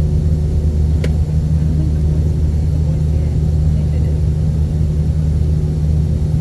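Steady low rumble of an Airbus A320's IAE V2500 engines and airflow, heard inside the passenger cabin, with a faint steady hum and a single click about a second in.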